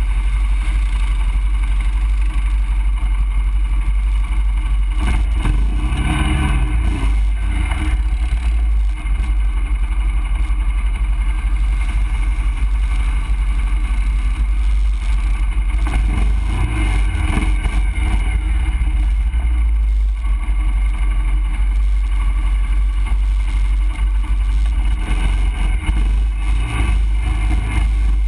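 ATV engine running steadily under a deep, continuous low rumble while the quad rides a rough dirt trail, with a few louder rough patches along the way.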